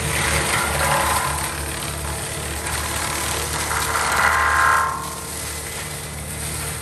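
Gyro-Trac 500HF forestry mulcher running under load, its engine humming steadily while the spinning mulching head grinds through brush and saplings. The grinding grows louder about four seconds in and eases just before five seconds.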